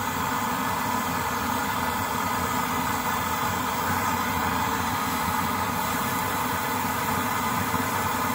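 A 1920s brass Primus pressure stove burning unleaded petrol, its burner running steadily at full flame: it has no simmer, only on or off.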